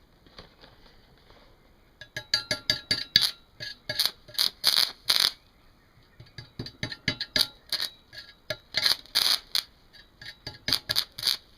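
Stick-welding arc powered by two car batteries, struck about two seconds in and then crackling in short, irregular bursts that keep breaking off: the arc is not holding steadily, and the welder is struggling with it on two batteries.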